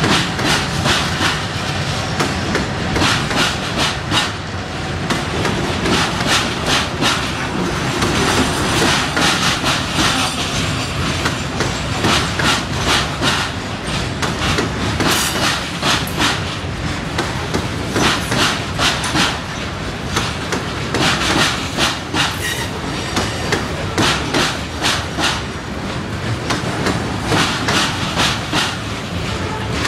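Union Railroad coke train's hopper cars rolling past, their wheels clicking over rail joints in repeated clusters over a steady rumble.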